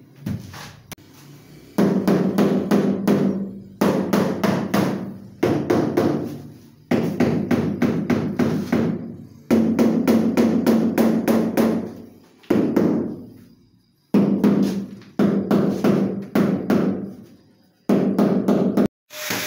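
A worker's palms slapping the face of a large ceramic wall tile to press it onto the wall, in about ten bursts of rapid slaps. Each burst starts sharply and dies away with the slab ringing low.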